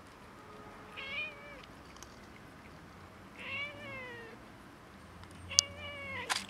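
A cat meowing three times, drawn-out cries that rise and fall in pitch, with a sharp click at the start of the last one.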